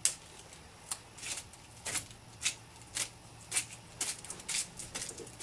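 Stifled laughter: a string of short, hissy puffs of breath, roughly two a second, with no voice in them.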